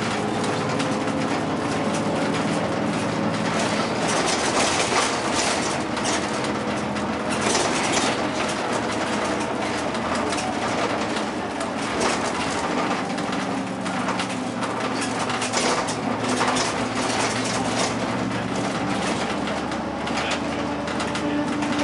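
Cabin noise of a bus driving along the road: the engine hum rises and falls in pitch with speed, under steady road noise and rattles.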